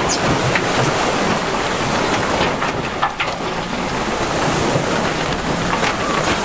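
Heavy earthmoving machinery running: a steady diesel engine noise with a wash of broad noise and a few light clanks.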